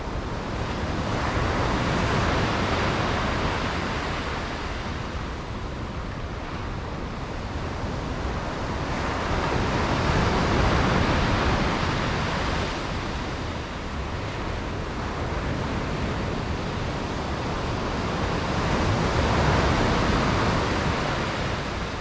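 Sea waves breaking and washing in, the surf swelling and ebbing three times, roughly eight to nine seconds apart.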